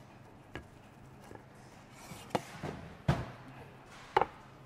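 Upturned stainless-steel pan knocked and set down on a wooden board several times while turning out a baked pastry that is sticking in it. The loudest are a heavy thump about three seconds in and a ringing metallic clank near the end.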